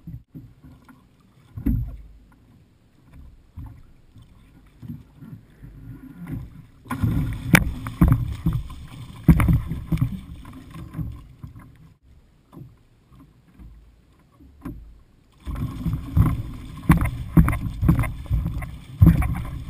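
Water splashing and slapping hard in two loud stretches, one about seven seconds in and one from about two-thirds through to the end, as a hooked shark thrashes at the surface right beside the kayak.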